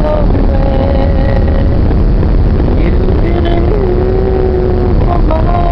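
Loud, steady rushing noise of a passenger boat under way: the engine's drone mixed with the churning of the wake behind the stern.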